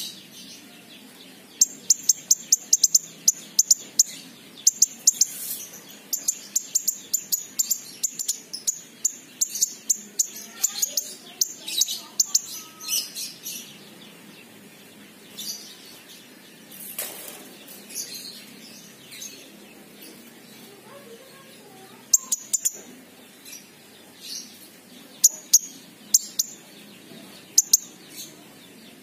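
King konin (kolibri ninja, a sunbird) singing in rapid runs of sharp, high chirps. The runs are dense for the first dozen seconds, then come in shorter bursts with pauses between.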